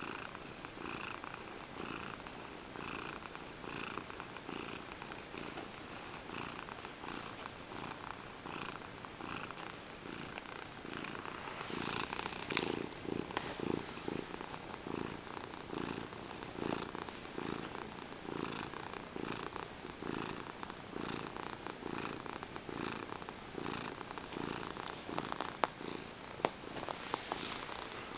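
Manx cat purring steadily in a regular in-and-out rhythm, louder for a few seconds in the middle. A couple of sharp clicks sound near the end.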